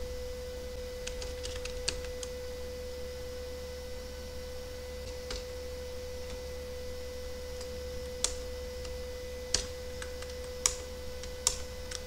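Computer keyboard keystrokes: a quick cluster of key clicks in the first two seconds, then single clicks every second or two. Underneath is a steady single-pitched hum and a low electrical buzz.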